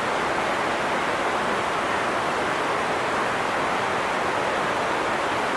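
River water rushing steadily, an even, unbroken wash of noise.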